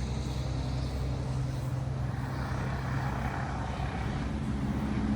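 A truck passing on the road, its engine droning steadily over a low traffic rumble.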